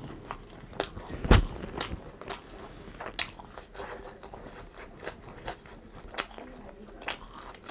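Close-up mouth sounds of someone chewing and biting food, a run of wet smacks and small crunchy clicks. A loud thump sounds about a second in.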